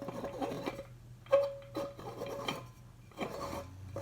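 Glass and metal parts of a vintage Arcade Crystal No. 3 wall-mount coffee grinder clinking and scraping as they are handled: several knocks, some with a short ringing note, the loudest about a second and a third in.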